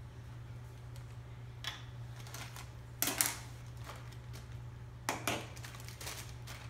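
Clear plastic packaging bags crinkling and rustling in short bursts as small boxed parts are handled, loudest about three seconds in and again around five seconds, over a steady low hum.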